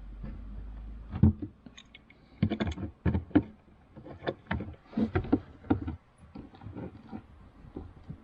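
Irregular knocks and clicks of hand tools working at a small stuck screw, starting about a second in, with several louder strikes in between.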